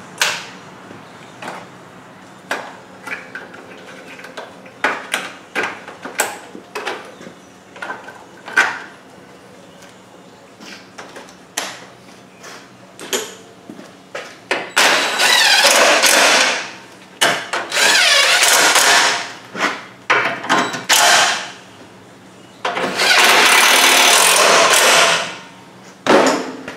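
Metal fasteners and parts clicking and knocking as bolts are set in place, then a cordless impact driver runs in four bursts of two to three seconds each, driving the bolts home.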